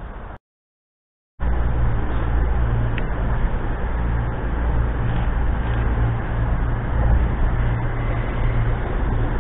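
About a second of silence at a cut, then a steady low rumble with a strong hum that holds to the end.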